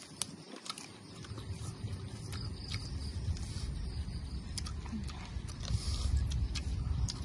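Close-up eating sounds: people chewing roast pork and dipped pork skin, with many short wet lip smacks and clicks. A steady low rumble sits underneath and grows louder about a second in.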